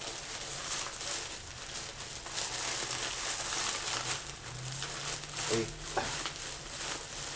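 Plastic packaging crinkling and rustling as it is handled and opened.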